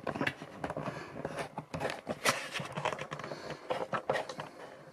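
Handling noise from a camera being moved and adjusted by hand: scattered small clicks, taps and rubbing.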